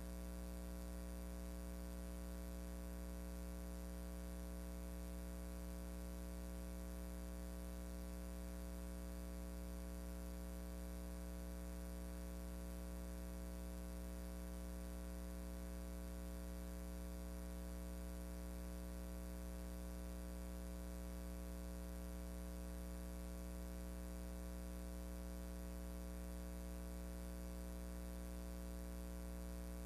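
Steady electrical hum with a low buzz and background hiss, unchanging throughout, with no voice or other event.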